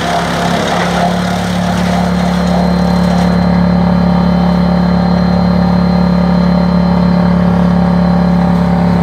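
Tractor-driven wood chipper running with a steady, loud hum. A rougher hiss over it drops away about three seconds in.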